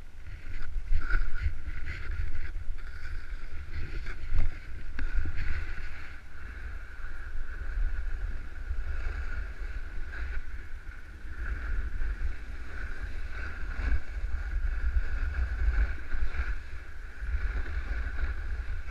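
Wind buffeting the microphone of a body-worn camera while snowboarding, a low fluttering rumble, over the steady hiss of the snowboard sliding on snow, with a few knocks in the first seconds.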